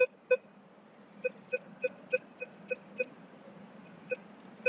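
Minelab Vanquish 340 metal detector with its V10 coil giving short, same-pitched beeps, about three a second in a run with brief gaps, each a response to a pre-reform Soviet one-kopeck coin passed in front of the coil during a detection-depth test.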